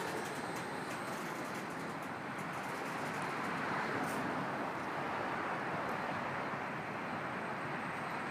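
Freight train of multi-level autorack cars rolling steadily across a railway bridge overhead: an even, continuous noise of steel wheels on rail.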